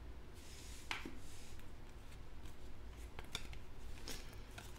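Baseball trading cards being handled and slid past one another in the hand: faint scattered rustles and small clicks of card stock, with a sharper tick now and then.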